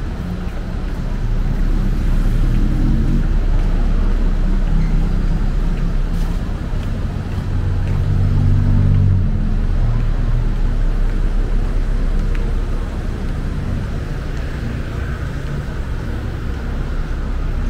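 City road traffic: a steady rumble of passing cars, with one vehicle's engine passing close and loudest about eight seconds in.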